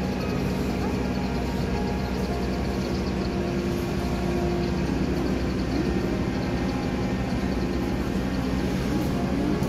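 Steady low rumble and hum of an idling diesel train, with an even drone that does not change throughout.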